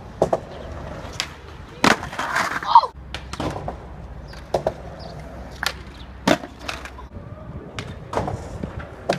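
Skateboards clacking on concrete: irregular sharp pops and slaps of boards being kicked and landing, with a rougher, louder stretch about two seconds in.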